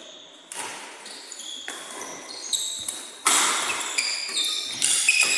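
Badminton rally: court shoes squeaking on the sports floor in repeated short, high chirps, with sharp hits and footfalls among them. There is echo from the hall, and it is loudest a little past the middle.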